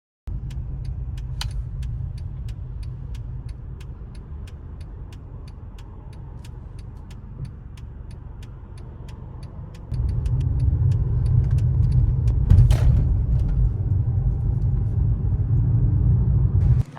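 Car road and engine rumble heard from inside a moving car. The rumble gets louder about ten seconds in, and a fast, even ticking runs through the first half.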